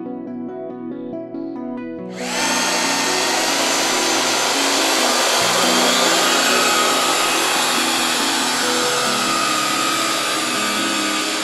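Syma X8C quadcopter's motors and propellers starting up about two seconds in and running as a loud, steady whir, heard close through the onboard RunCam HD's microphone, over background music that plays throughout.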